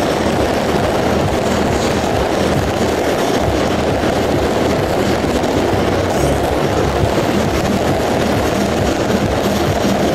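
Beehive fireworks (a tower of bottle rockets) firing en masse: a steady, dense roar of countless rockets launching and bursting at once, with no single bang standing out.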